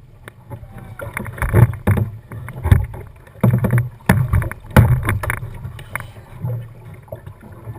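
Kayak paddle splashing through the water in a run of strokes, loudest in the middle, over a steady low rumble of water against the boat.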